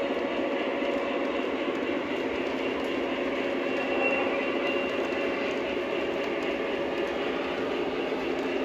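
O gauge three-rail model train, a pair of Lionel diesel locomotives pulling a string of coal hoppers, running along the track with a steady hum of motors and the rolling of wheels on rail. A brief high squeal about four seconds in.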